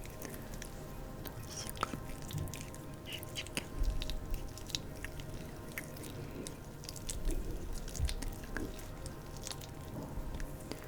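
Oil-slick hands rubbing and pressing close to the microphone, giving soft, wet, sticky clicks and crackles at an irregular pace, with a few duller thumps.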